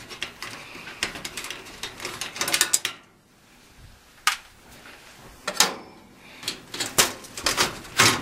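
Close handling noise at a sheet-metal cabinet: irregular clicks, knocks and rustles, easing off for about a second around three seconds in.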